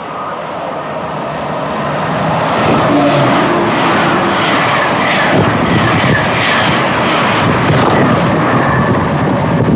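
A train running past on the main line: the noise builds over the first two or three seconds and then stays loud.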